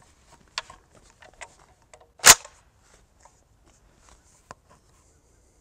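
Century Arms C308 rifle being handled: a few light clicks, then one loud, sharp crack a little over two seconds in, and a last small click near the end.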